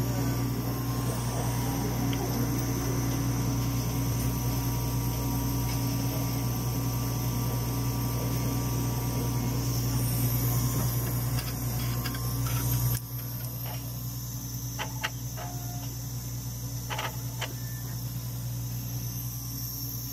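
Steady low hum of a Dimension RxL clinical chemistry analyzer running. The hum drops noticeably about two-thirds of the way through, and a few light clicks follow.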